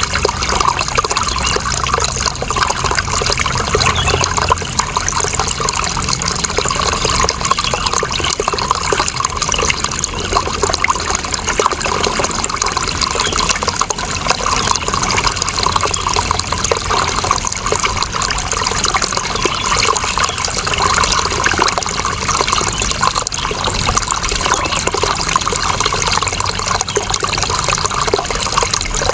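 Water running steadily: a continuous, even flow of splashing water with no breaks.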